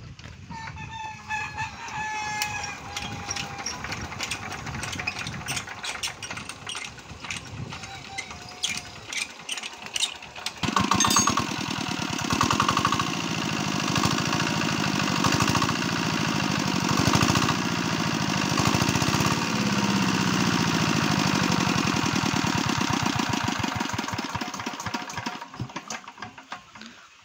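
A rooster crows as the CT4 R170A single-cylinder diesel engine of an irrigation pump is turned over with irregular knocks. About ten seconds in the engine catches and runs at a steady rapid beat, then dies away near the end.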